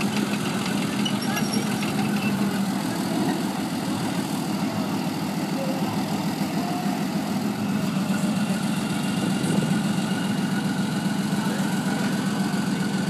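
Leopard 2SG main battle tank's V12 diesel engine running steadily in a low, even drone, with faint voices of onlookers.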